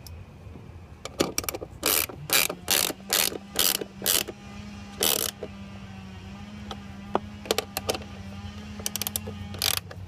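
Ratcheting wrench clicking as it turns down a mounting-bracket nut, in a run of quick strokes, a short pause, then more strokes near the end.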